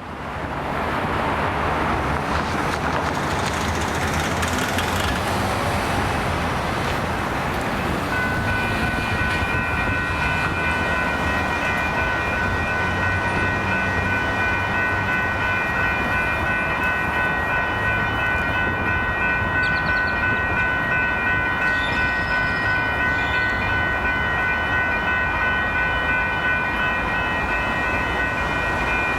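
Railroad grade crossing warning bell ringing steadily, starting about eight seconds in, as the crossing signals activate for an approaching train, over a continuous loud rush of noise.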